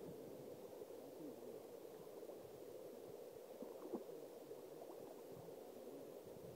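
Faint, steady gurgle of a shallow, rocky river flowing over stones, with a light tick about four seconds in.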